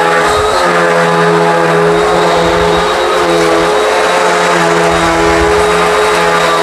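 Hoover WindTunnel upright vacuum running on an outdoor rug, a steady motor whine with its brushroll agitating the rug. The pitch dips and recovers slightly every second or two, with surges of low rumble as the vacuum is pushed back and forth.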